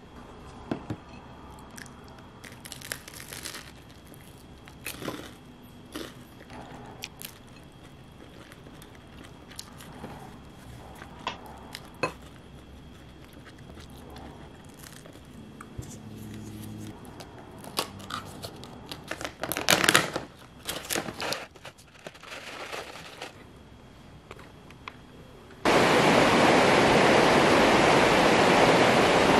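Quiet eating sounds at a table: scattered small clicks, crinkles and crunches as yogurt and toast with brie are eaten. Near the end the sound cuts suddenly to a loud, steady rush of a shallow rocky river.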